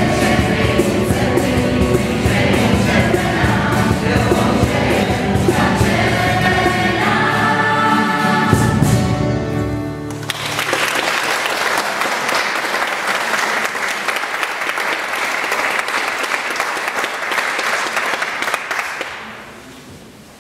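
A youth choir sings with two acoustic guitars, the song ending about ten seconds in. Then the audience applauds for about nine seconds before the clapping dies away near the end.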